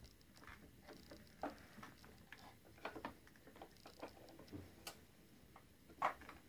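Scattered small plastic clicks and knocks as the hose and fittings of a Kirby vacuum's Rug Renovator attachment are handled, with the vacuum motor not running. The sharpest click comes about six seconds in.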